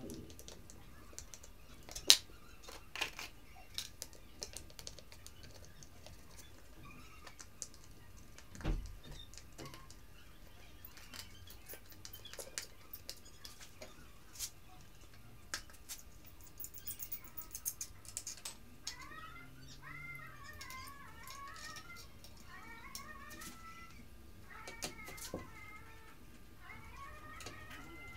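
Scattered small clicks and metal clinks of tools and fittings as a motorcycle exhaust muffler is fitted back onto the bike, with one sharp click about two seconds in and a dull thump near nine seconds. In the last third, a wavering high-pitched sound repeats several times.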